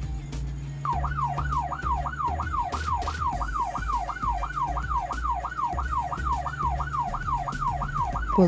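Police van siren in a fast yelp, its tone sweeping down over and over about three times a second, starting about a second in over a low steady hum.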